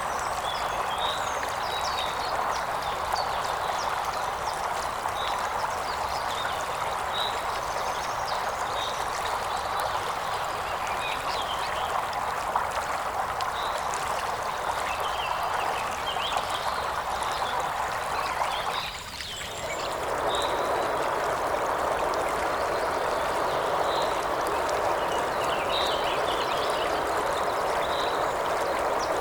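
River water flowing steadily over stones, with a bird giving short repeated calls about once a second. The rush of water dips briefly about two-thirds of the way through and then returns.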